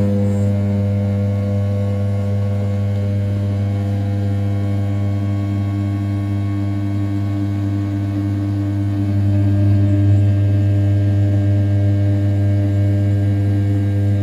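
500 W brushless spindle of an RZ420 desktop CNC router at 6000 rpm, rough-milling the outer contour of an A7075 aluminium block: a steady hum with overtones that swells a little about nine seconds in.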